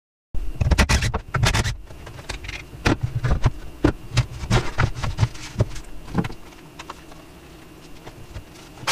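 Irregular knocks and clatters of a power tool and timber being handled on a wooden workbench. They start abruptly and thin out after about six seconds to a quiet background hum.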